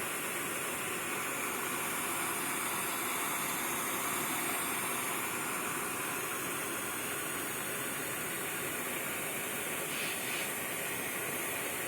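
Propane torch flame hissing steadily while it heats a soldered copper pipe joint until the solder melts out.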